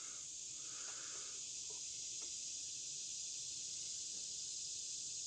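Insects chirring steadily in a high-pitched drone, with a faint soft noise for about a second near the start.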